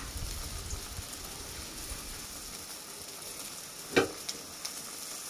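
Chicken and vegetable broth simmering in a metal wok with a steady sizzling hiss. One sharp knock about four seconds in, with a couple of faint ticks after it.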